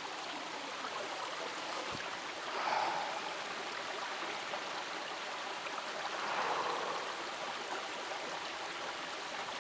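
A small woodland stream trickling and burbling over rocks, a steady rush of water that swells slightly twice.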